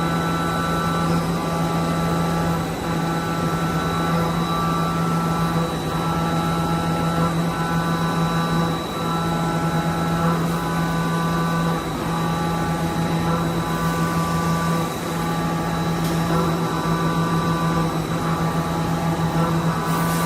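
Automated machining cell with a Mazak i250H mill-turn machine and gantry robot running: a steady mechanical hum with a thin high whine, dipping briefly about every three seconds.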